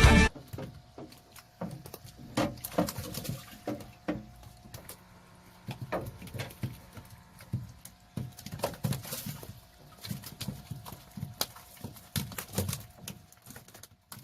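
Irregular light knocks and taps, some coming in quick clusters, over a faint steady hum.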